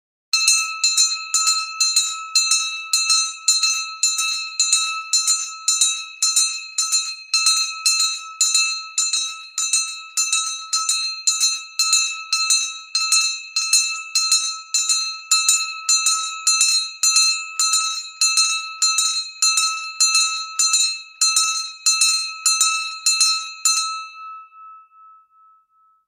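Very large brass hand bell rung steadily, about two strokes a second, each stroke ringing the same clear pitch. Near the end the strokes stop and the ring dies away.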